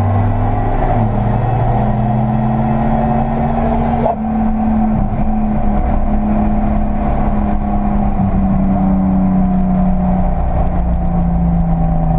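Nissan L28ET turbocharged straight-six running with the weird noise and loss of power the owner reports. About four seconds in, a high hiss cuts off suddenly and the engine note then slowly sinks in pitch.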